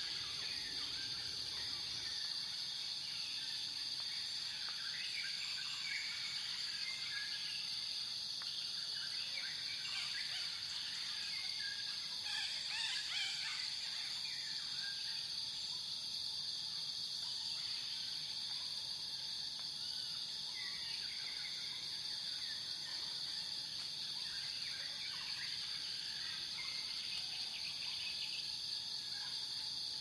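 Outdoor nature ambience: a steady high-pitched insect chorus, like crickets, with many short bird chirps and calls scattered over it, busiest about a third of the way in.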